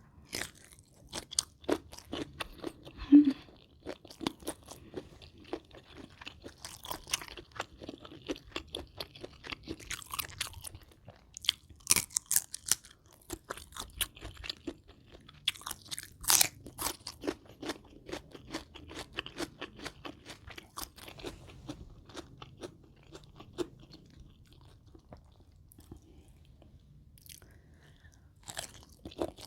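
Close-miked crunching and chewing of mouthfuls of spicy rice-noodle salad with raw shrimp and fresh raw vegetables: irregular crisp bites and chews, with one sharp loud crunch about three seconds in.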